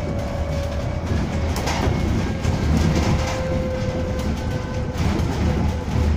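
Cabin ride noise of a Safra Businova city bus under way: a low rumble with a steady whine and a few light rattles.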